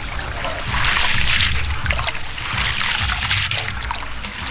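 Water sloshing and splashing as hands wash bean sprouts in a metal basin of water, swelling about a second in and again near three seconds.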